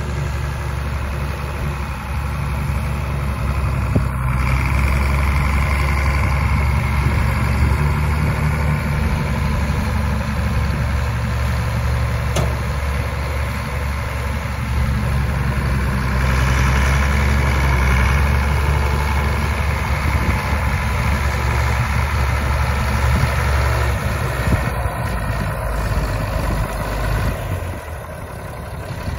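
1961 Cockshutt 570 Super tractor's engine running as the tractor is driven, steady throughout, swelling louder for two long stretches and easing off near the end.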